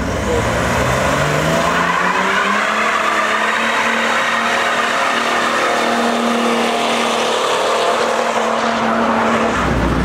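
BMW 3 Series Touring doing a burnout. The engine revs up over about two seconds and is held high and steady while the rear tyres spin and squeal, then the revs drop near the end.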